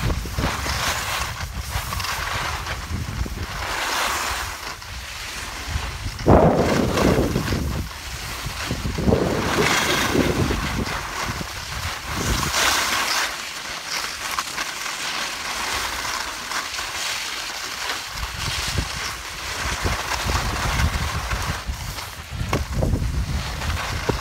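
Wind buffeting the microphone along with the hiss and scrape of sliding fast over snow on a ski slope. The sound swells and fades every few seconds.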